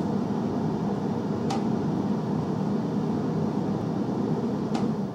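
Forced-air furnace blowing air steadily through a galvanized sheet-metal floor duct, with two sharp metallic taps from the ductwork, one about a second and a half in and one near the end. The owner takes the taps for oil canning of the duct metal.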